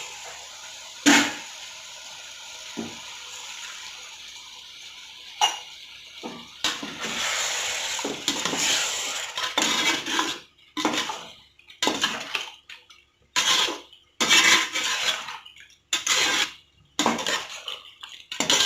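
Water poured into a pot of chicken masala, then a metal spoon stirring and scraping around the pot in a run of short strokes, roughly one a second, from about ten seconds in.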